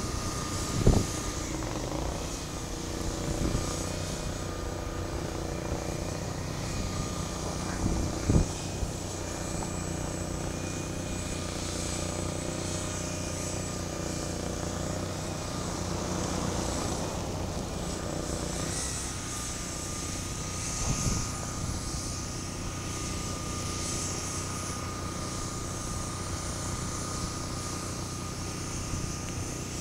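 Steady engine drone with a low hum, broken by a few short knocks about one second and eight seconds in.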